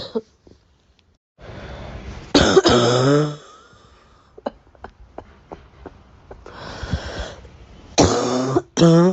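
A person coughing: a noisy breath in, then a long, loud cough about two seconds in; a few faint clicks follow, then another breath in and two coughs in quick succession near the end.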